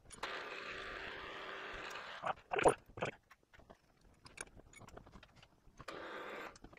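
A machine motor runs steadily for about two seconds, then a few sharp knocks and scattered clicks follow, and the motor runs again briefly near the end.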